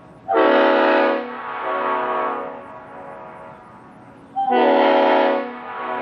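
Leslie RS5A air horn (reproduction S5A with RS spike-back heads) sounding a deep, very loud chord in two blasts about four seconds apart. Each blast is loud for about a second, then carries on more quietly for about another second.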